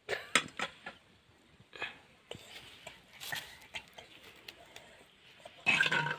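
Steel ladle knocking and scraping against steel plates and a clay pot while curry is served, a scatter of short clicks and clinks. A brief, loud pitched call cuts in near the end.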